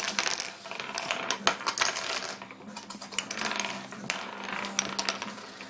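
Wooden nickels spun on a wooden tabletop: quick clicks and rattles as the discs spin, wobble down and knock into one another, over and over.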